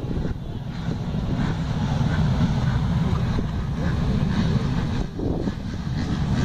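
Many motocross bikes running together in the distance at the start gate, their engines faintly revving up and down, under a heavy low rumble of wind on the microphone.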